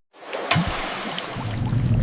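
Rushing, water-like sound effect that fades in after a brief dead cut-out, with one sharp click about half a second in.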